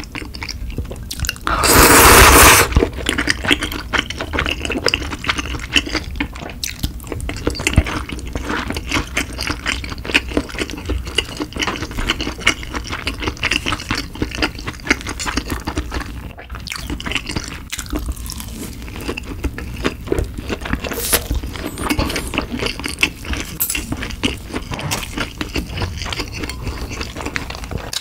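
A loud slurp of udon noodles about two seconds in, then close-miked chewing, with wet mouth clicks and soft crackles going on steadily.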